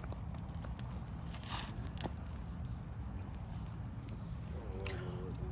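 Crickets trilling in one steady high note over a low rumble, with a few faint clicks.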